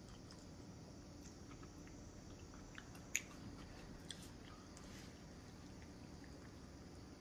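A person chewing food with the mouth close to the microphone: faint, scattered wet clicks, with one louder click about three seconds in.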